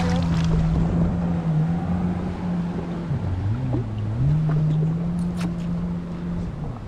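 Jet ski engine running steadily, with wind and water hiss. Its pitch drops as the throttle eases about three seconds in, comes back up a second later, and dips again near the end.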